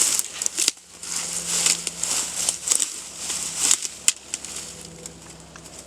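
Dry grass and brush rustling and crackling as someone pushes through the cover. It drops out briefly about a second in and gets quieter from about four seconds in.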